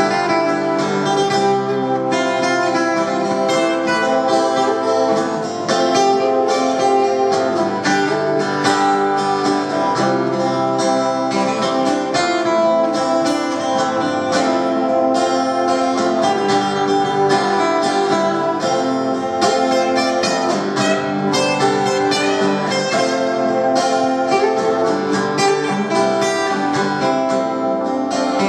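Acoustic guitars playing an instrumental passage with strummed chords and picked notes, at a steady level.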